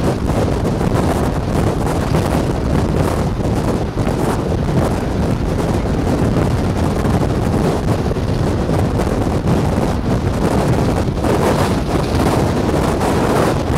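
Steady wind rushing over the microphone of a moving car, mixed with road noise.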